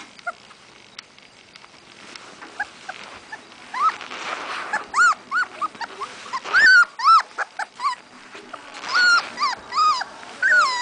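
Young Siberian husky puppy making short, high-pitched whines in a quick string from about four seconds in, each call rising and falling in pitch.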